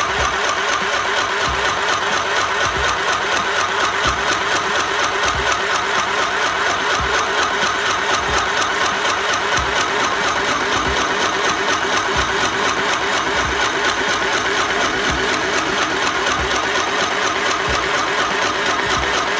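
Electric mini sewing machine running steadily under foot-pedal control, its needle stitching through fabric in a fast, even rattle.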